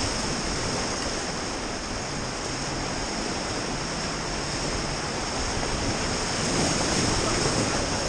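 River rapids rushing and churning around an inflatable raft: a steady whitewater rush, rising slightly about three quarters of the way through.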